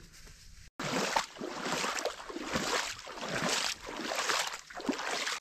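Footsteps walking through wet marsh ground and shallow water, a splashing crunch with each stride. They start after a brief gap just under a second in and come about every half second to second.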